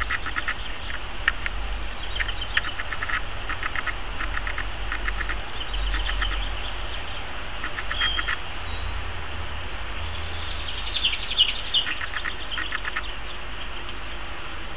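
Birds calling: short rattling call trains repeated every second or so, with a burst of higher chirps about two-thirds of the way through, over a low rumble.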